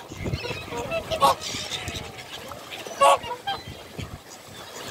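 Birds calling at feeding time: several short calls, the loudest about a second in and again about three seconds in.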